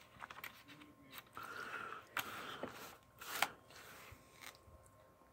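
Plastic Blu-ray cases handled and set against a laptop lid: light clicks, taps and scrapes, with a short squeak of plastic sliding about a second and a half in and a sharper click about three and a half seconds in.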